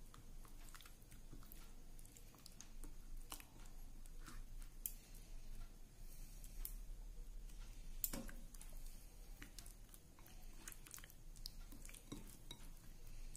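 Faint wet squelching with irregular light clicks as a hand mixes raw bhetki fish pieces into a thick spice paste in a metal bowl, coating each piece.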